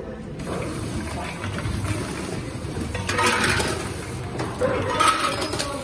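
Automatic packing machine running, with foil-wrapped chocolate eggs tumbling and rattling in its spinning feed bowl. Louder clattering comes about three seconds in and again about five seconds in.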